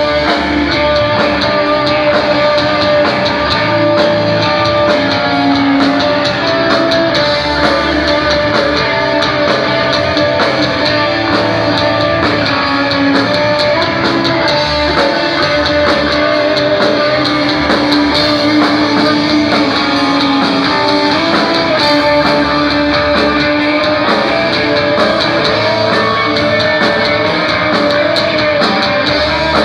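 Grunge rock band playing live: electric guitar over a drum kit in a loud, steady instrumental passage with no vocals.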